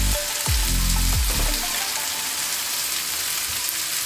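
Potato and pea stuffing sizzling in hot oil in a metal kadhai, a steady frying hiss. A low hum sounds under it and stops about a second and a half in.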